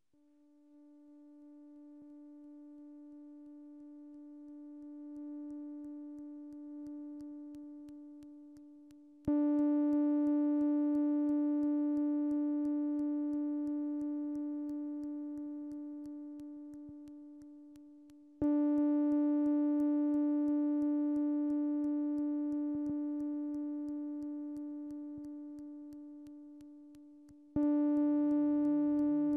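DIY analog synthesizer (Sound Lab Mini-Synth with an MFOS WP-20) holding one buzzy note, which swells in slowly at first. The note then restarts three times, about nine seconds apart, each time starting loud and slowly dying away. Near the end a lower pulsing pattern joins in under it.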